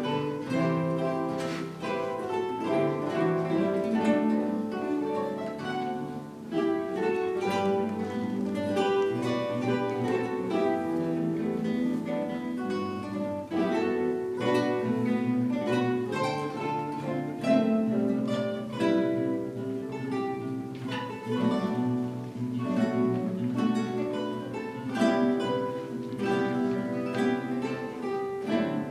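A guitar ensemble of many acoustic guitars playing together, plucked notes and chords in several parts at a steady pace.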